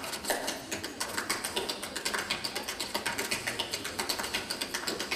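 Tap shoes striking a stage floor in fast, irregular runs of sharp taps.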